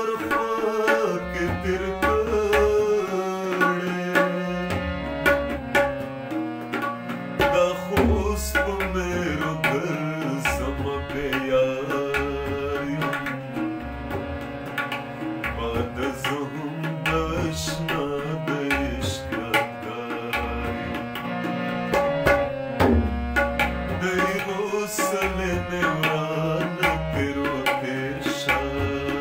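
Tabla played in a fast, busy rhythm over held harmonium chords, with a male voice singing in parts.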